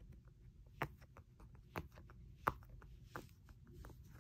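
Silicone heart-shaped pop-it fidget toy being pressed on its quiet side: faint, irregular soft pops, roughly one every half second to second.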